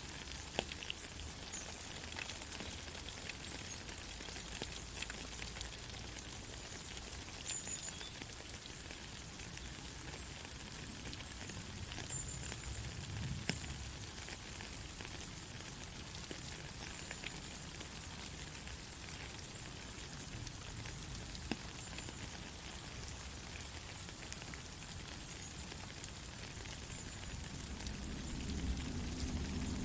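Steady rain hissing, with scattered ticks of single drops. A low rumble swells in near the end.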